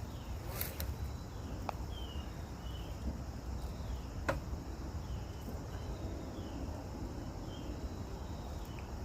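Outdoor ambience: short, high, downward-gliding chirps about once a second over a low steady rumble, with three faint sharp clicks, near the start, about two seconds in and just past the middle.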